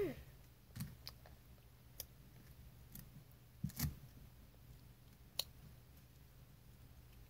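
Faint, scattered mouth clicks and small smacks as a child nibbles and chews a thin strip of edible paper, about one click a second with a slightly louder one near four seconds in.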